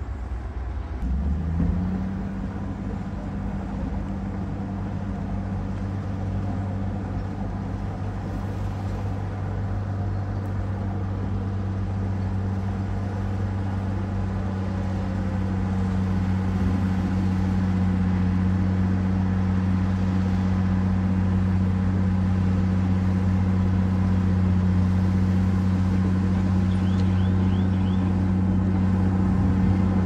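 Heavy diesel engines of a dump truck and a bulldozer running at steady high revs, a deep even drone. It picks up about a second and a half in and grows slowly louder.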